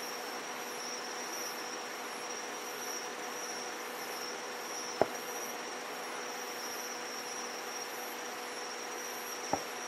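Distant aerial firework shells bursting: two short, sharp bangs, one about five seconds in and one near the end, over a steady chorus of insects chirping in the night.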